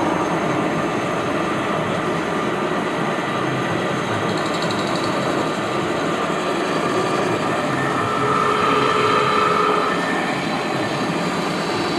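Metal lathe running steadily while machining a 4140 steel round bar into power hammer dies.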